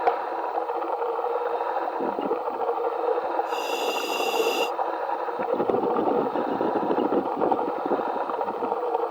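Underwater wet stick-welding arc burning with the welding power switched on, heard over the diver's helmet communications as a steady, dense noise. A brief high tone sounds for about a second a little past three seconds in.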